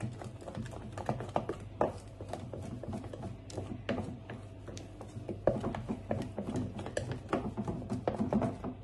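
Wooden spatula stirring thick batter in a glass mixing bowl: a run of irregular clicks and knocks as the spatula scrapes and taps the bowl, stopping near the end.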